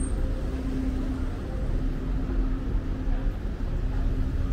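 City street traffic: a steady low rumble of cars driving past, with a faint engine hum over it that comes and goes.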